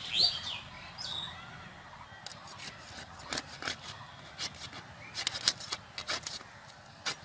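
Raw chicken being cut on a bonti, a fixed upright curved blade: a scatter of short sharp cracks and snicks as the meat is pushed down through the blade, busiest in the second half. Near the start, a couple of short high bird calls slide in pitch and are the loudest sounds.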